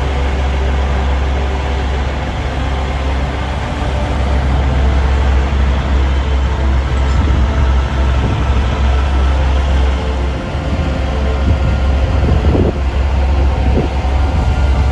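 Heavy machinery engine running with a steady, loud low rumble, with a few light knocks near the end.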